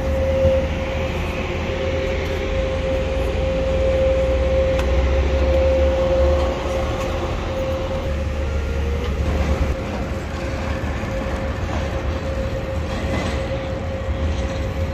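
Airport apron machinery running: a steady low rumble under a constant mid-pitched whine. The rumble eases a little about ten seconds in.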